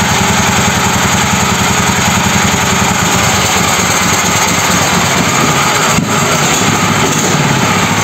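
Homemade mini tractor's engine running steadily with the hydraulics engaged, its low note shifting about three seconds in. There is a short knock about six seconds in.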